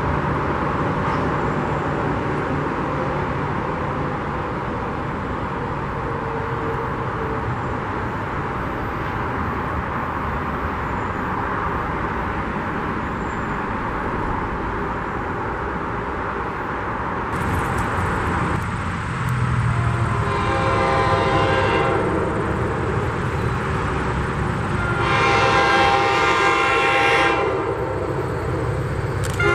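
Steady rumble of a diesel-hauled passenger train moving away, then a locomotive air horn sounds two long blasts, a couple of seconds apart, as a train approaches the crossing.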